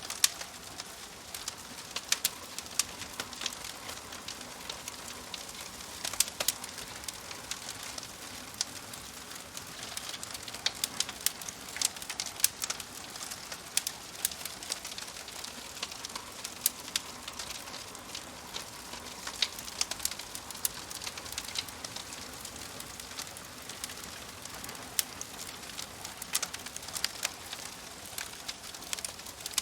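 Wood fire burning in a wood-burning stove: a steady hiss of flames with irregular sharp crackles and pops from the burning wood, some much louder than the rest.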